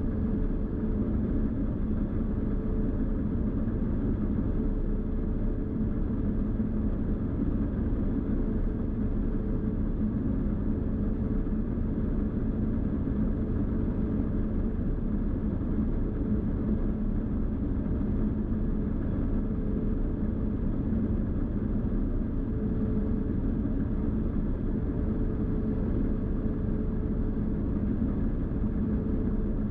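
New Holland TX66 combine harvester running steadily at work in wheat: a continuous low drone of engine and threshing machinery with a constant hum.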